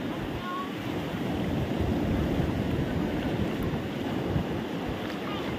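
Sea surf washing onto the beach, with wind rumbling on the microphone; the wash swells about two seconds in.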